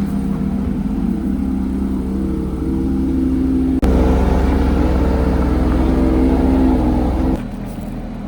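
Sports car engine running at fairly steady revs under way. About four seconds in it breaks off for an instant and comes back louder and deeper, then drops in level a little past seven seconds.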